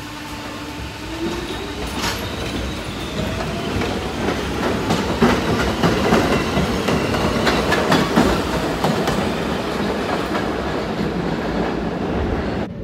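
R46 subway train pulling out, its motors whining up in pitch as it gathers speed and its wheels clattering over the rail joints, growing louder toward the middle. The sound cuts off suddenly near the end.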